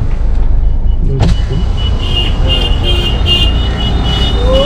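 Inside a Maruti Suzuki Baleno's cabin: a steady low rumble from the car, with a thin, steady high whine through most of it.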